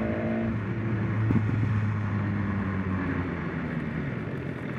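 Motorcycle engine running at a steady low note under riding wind noise, the note fading and the overall sound easing off as the bike slows. A single short click about a second in.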